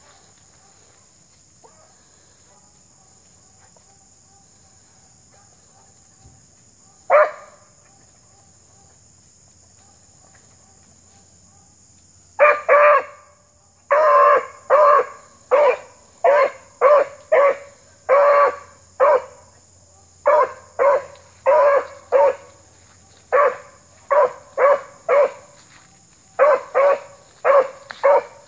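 Beagle giving tongue while trailing scent. One bark about seven seconds in, then, from about twelve seconds on, a steady run of loud, short barks at about two a second, with brief breaks.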